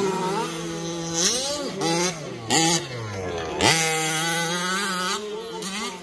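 Several radio-controlled racing trucks' motors buzzing at high revs, their pitch rising and falling as they accelerate and brake; a little past halfway one drops steadily in pitch, then revs sharply back up.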